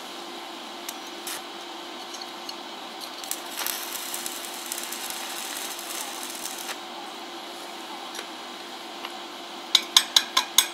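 Electric arc welding on steel bars: the arc crackles and hisses for about three and a half seconds over a steady hum. Near the end comes a quick run of sharp metallic taps, about four a second.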